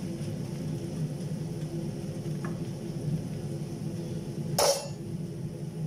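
Sliced okra frying in oil in a small pan, under a steady low hum, with one short sharp clink of a utensil on the pan about four and a half seconds in.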